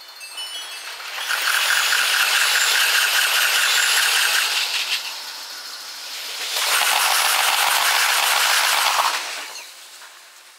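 Two 15-car JR Yokosuka Line trains rushing past one after the other, in sound sped up six times, so each pass is a few seconds of loud rattling rush. A level-crossing bell's quick chimes fade out right at the start.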